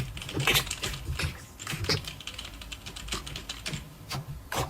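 Slime being squeezed and poked, making irregular sticky clicks and small pops, several a second.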